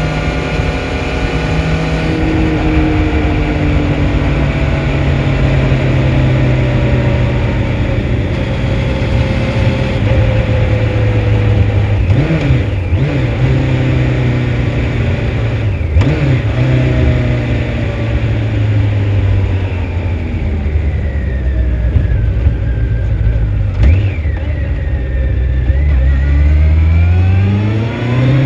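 2004 Honda CBR1100XX Blackbird's inline-four engine running on the road. Its pitch sags slowly for most of the time, with a few short wobbles. Near the end it revs up steeply as the bike accelerates.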